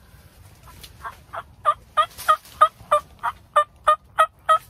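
A run of about a dozen loud turkey yelps, evenly spaced at about three a second, each note breaking from high to low, starting about a second in.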